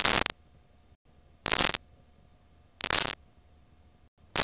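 Blank videotape playing back: short bursts of loud static hiss about every one and a half seconds, with a faint steady hum in between.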